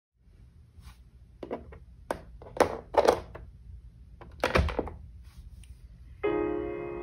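Acrylic jigsaw puzzle pieces being handled and set into the puzzle frame: a handful of hard clacks and knocks. A piano chord starts near the end.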